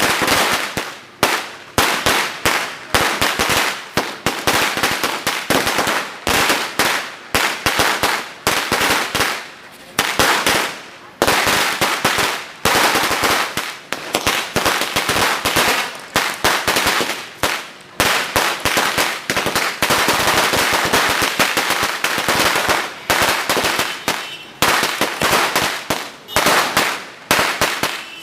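Sinturon ni Judas, a long belt of small firecrackers strung together, going off in a rapid, continuous crackle of sharp bangs, with short lulls every second or two.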